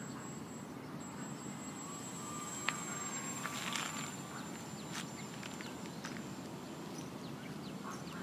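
A radio-controlled model airplane's motor droning faintly as it flies overhead, under steady low outdoor background noise, with one sharp click nearly three seconds in.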